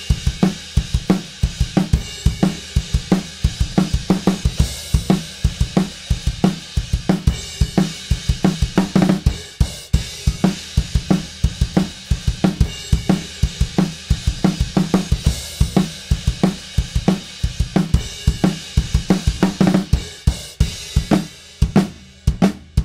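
Multitracked acoustic drum kit playing back in a steady groove: kick, snare, hi-hats and cymbals. The snare is doubled by a sampled 14x7 DW Collector Series snare triggered from MIDI notes.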